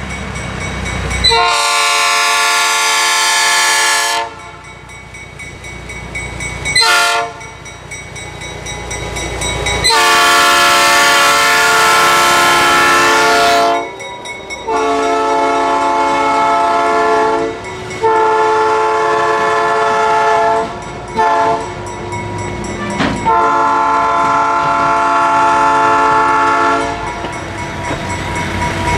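GE diesel locomotive's air horn sounding a sequence of blasts with several tones at once as the train passes: five long blasts of about three to four seconds each and two short toots, about seven seconds and about twenty-one seconds in. Between the blasts, the engine and the wheels rumble and clatter on the rails.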